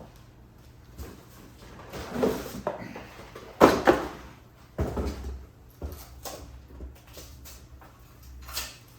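A DeWalt miter saw stand being handled and pulled out of its cardboard box: a series of knocks, scrapes and thumps, the loudest about three and a half seconds in.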